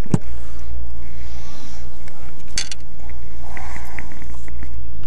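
Light clicks and clinks of fishing tackle (a baitcasting reel and spinnerbait) being handled, over a steady low rumble.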